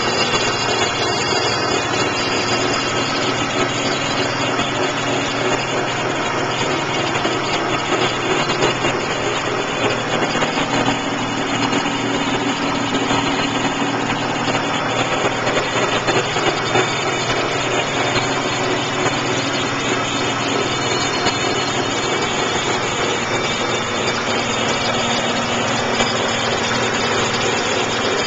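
BMW Z3's 2.5-litre straight-six engine idling steadily, with an extraneous noise in the background of unknown cause that the owner finds loudest near the alternator.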